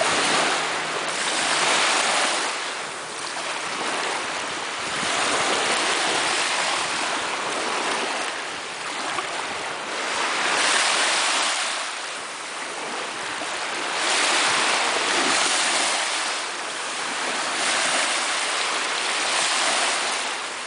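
Sea waves breaking on the shore: the surf swells and ebbs every few seconds.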